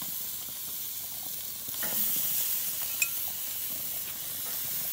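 Marinated raw chicken wings sizzling as they are laid on a hot grill grate with tongs; the sizzle swells about two seconds in as another piece goes down. A single sharp click about three seconds in.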